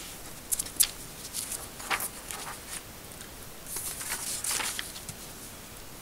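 Sheets of paper rustling and sliding as they are handled and swapped on a tabletop, with a few faint clicks.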